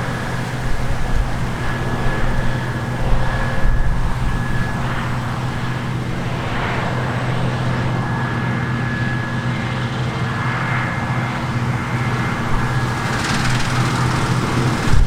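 Diesel engine of large harvest machinery running steadily under load, with a faint high whine that comes and goes and swells of rushing noise, the loudest near the end.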